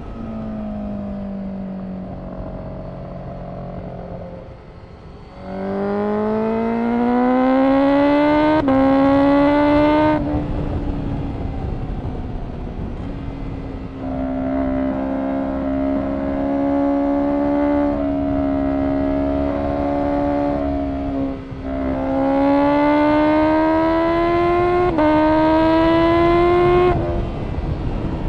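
Honda CBR1000RR-R SP Fireblade's inline-four engine through an Akrapovic exhaust. It eases off at first, then accelerates hard twice. Each time the pitch climbs with a sharp drop at an upshift, and between the two runs it holds a steady drone. It backs off near the end.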